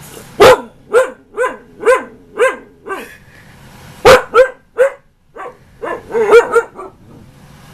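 A young Siberian husky barking and 'talking' back in about a dozen short, pitched barks and woo-like calls, mostly about two a second, with two loud sharp barks about half a second in and about four seconds in, and a quick cluster near the end. It is the demanding back-talk of a husky that wants something.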